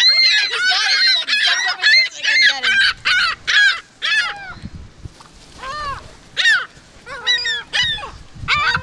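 A flock of ring-billed gulls calling, many overlapping squawks at first, thinning out after about four seconds to scattered single calls.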